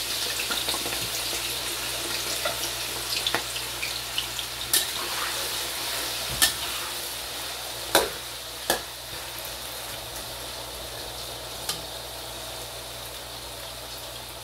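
Diced potatoes, freshly drained from soaking in salted water, sizzling steadily in hot oil in a wok, easing a little towards the end. A handful of sharp clicks as a metal spatula strikes the wok while stirring.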